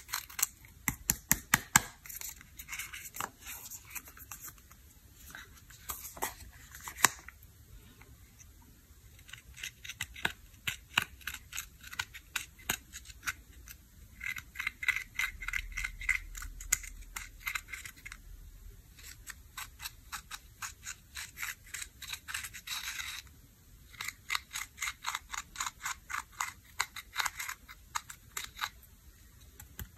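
Quick clicking and scratching of a metal-tipped stylus digging pressed eyeshadow out of the pans of a plastic makeup palette, the powder crumbling. It comes in bursts of rapid clicks with short pauses, and there is a steadier scratching stretch in the middle.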